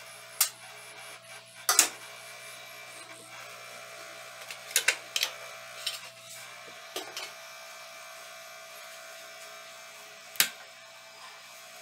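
Steady whirr of a Ya Xun 852 hot-air rework station's blower running, broken by several sharp clicks and taps as tools and parts are handled on the motherboard.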